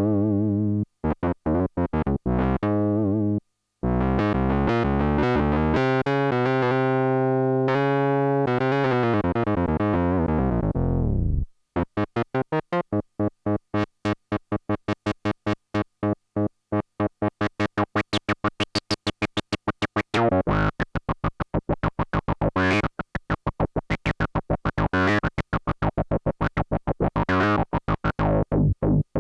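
Behringer Odyssey analog synthesizer playing: held tones broken by short staccato notes, then a sustained passage that glides down in pitch about eleven seconds in and gives way to a fast run of short, repeated notes.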